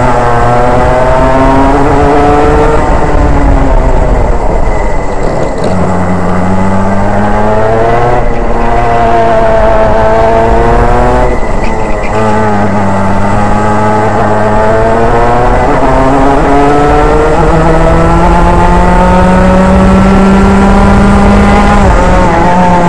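Racing kart engine heard from on board, revving up in pitch along each straight and dropping sharply as the driver lifts off for the corners, about five times over the lap.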